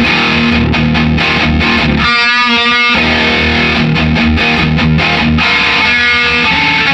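Les Paul electric guitar played through a distorted guitar amp head and speaker cabinet, loud heavy riffing with a held note shaken with wide vibrato about two seconds in. The head drives the cabinet through an instrument patch cable rather than a proper speaker cable.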